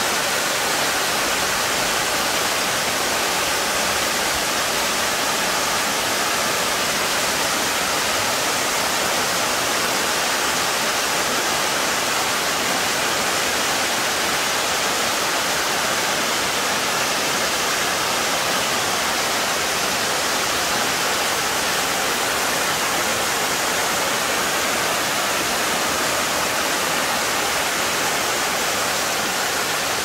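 Mountain water rushing steadily: a constant, even hiss of falling and running water with no breaks or changes.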